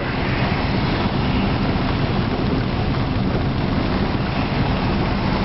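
Steady rain and wind noise: an even rushing hiss over a low, choppy rumble.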